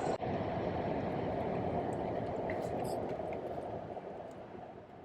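Steady low road and engine noise, as heard inside a moving car. It fades away over the last second or so.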